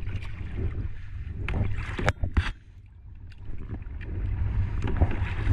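Wind rumbling on the microphone while paddling a plastic sit-on-top kayak, with a few sharp knocks about two seconds in.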